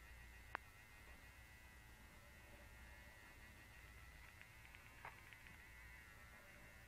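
Faint steady buzzing hum of a small battery-powered vibrator running, with a sharp click about half a second in and a smaller tick about five seconds in.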